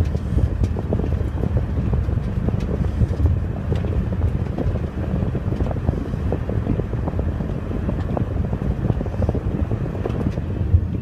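Snowstorm wind buffeting the microphone: a steady low rumble with scattered light ticks.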